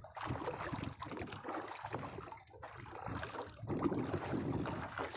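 Wind buffeting the microphone, with water lapping and slapping against the hull of a small open wooden fishing boat; the level rises and falls unevenly.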